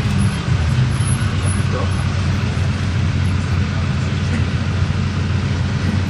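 Motor vehicle running past, a steady low engine drone with road noise.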